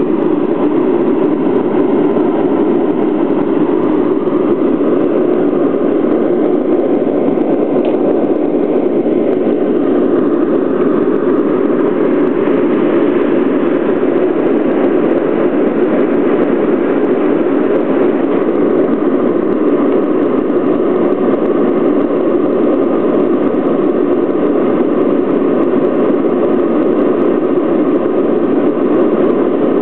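Steady cabin noise of a jet airliner in cruise flight, heard from inside the passenger cabin: the even, unbroken drone of the engines and the air rushing past the fuselage.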